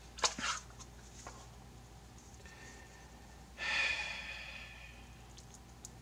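A few short crinkles of wrapping as a fresh spool of solder is unpacked, then a breathy exhale that starts about three and a half seconds in and fades out over about a second.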